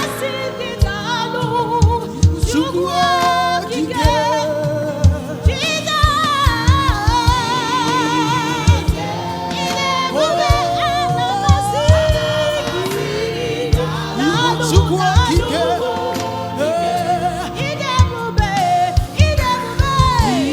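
Church choir singing a gospel song with accompaniment. Wavering voices with strong vibrato carry the tune over a running beat of low thumps.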